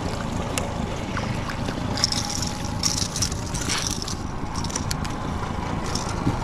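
Steady wind noise on the microphone, with a few short clicks and rustles about two to four seconds in.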